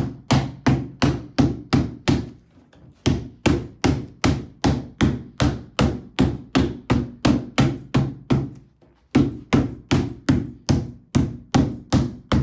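Rubber mallet striking a plastic brooder panel over and over, about two and a half blows a second, driving the panel's pegs down into their holes. The blows come in three runs with brief pauses in between.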